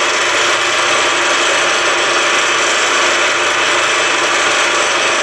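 Milling machine's end mill cutting a slot into the end of a metal bar, 1 mm deep per cut at 540 rpm: a steady cutting noise over the running spindle, with a fair bit of chatter.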